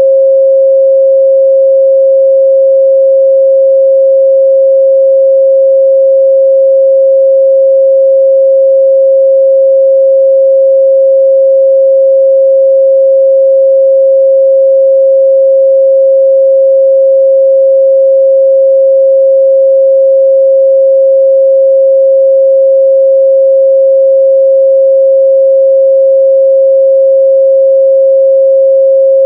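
A pure 538 Hz sine-wave test tone, one steady unbroken pitch at constant loudness, used to check a speaker's or headphone's midrange response.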